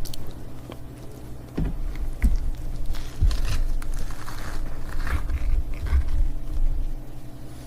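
Ice cubes being bitten and chewed close to the microphone: a run of irregular crunches and cracks that starts about a second and a half in and dies down near the end.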